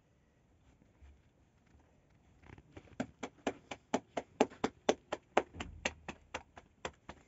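Rapid hand slaps on a round of flatbread dough as it is flipped from palm to palm to stretch it thin for the tandoor. The slaps start about two and a half seconds in and go on at about four a second.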